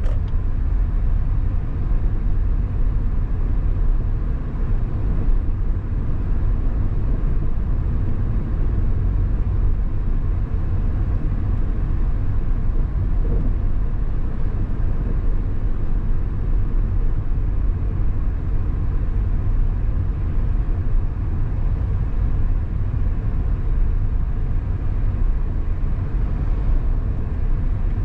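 Steady low rumble of a car driving: engine and road noise, even throughout with no distinct events.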